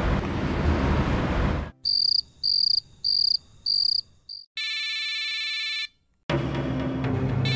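Mobile phone ringtone: four short high-pitched electronic beeps, then a denser electronic tone lasting about a second, after a stretch of background noise. After a brief silence, background music comes in near the end.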